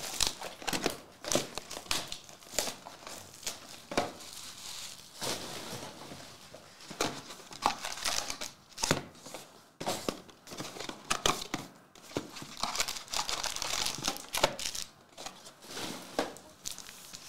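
Foil-wrapped Donruss Elite basketball card packs crinkling and rustling as they are pulled out of their cardboard boxes and stacked, with sharp tearing sounds as the boxes are opened. The rustles and clicks come thick and irregular throughout.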